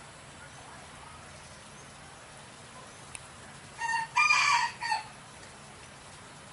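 A rooster crowing once, about four seconds in: a short first note, a long loud middle note and a short final note.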